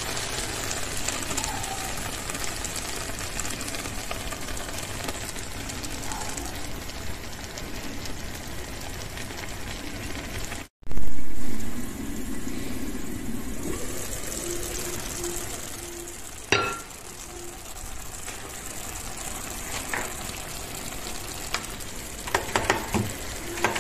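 Eggplant, pepper and tomato mixture frying in a pan with a steady sizzle as beaten egg is poured in. About eleven seconds in there is a loud knock, and near the end a gas stove knob clicks several times as the burner is turned off.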